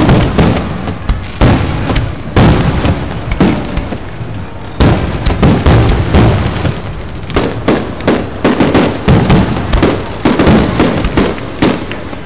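Aerial firework shells bursting in a rapid, dense barrage of loud bangs, one after another with hardly a pause.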